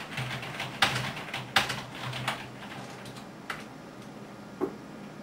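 Typing on a computer keyboard: scattered, irregular key clicks, a few louder strokes in the first seconds, thinning out toward the end.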